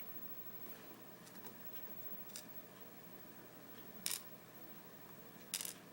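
A few sharp clicks of small metal lock parts and tools being handled while a pin-tumbler lock is taken apart: a faint one about two seconds in, a louder one about four seconds in and a quick double click near the end, over a quiet background.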